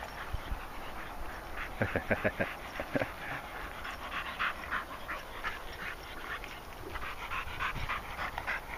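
A dog panting in quick, rhythmic breaths, with a few short rustling knocks about two seconds in.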